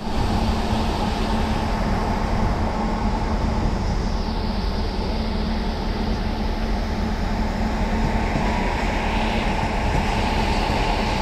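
Steady rumble and rushing noise of an electric train in motion, with a constant low hum running under it.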